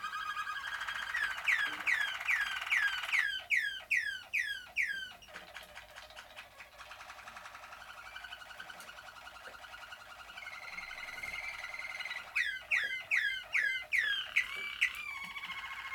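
Malinois (Waterslager) canaries singing: a steady rolling trill breaks into a run of quickly repeated falling notes, about three a second, twice. Softer rolls fill the stretch between the two runs.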